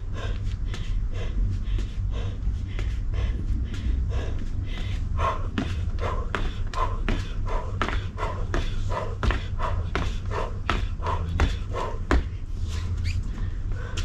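Feet landing on a wooden deck during high-knee marching, a run of short thuds that comes about twice a second and is loudest from about five seconds in to near the end.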